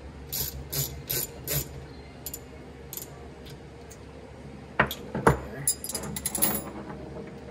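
Ratchet wrench clicking in four quick strokes as a bolt is worked out of a dirt bike's rear brake caliper. Then metal hand tools clink and knock as they are set down on the bench, the loudest knock about five seconds in.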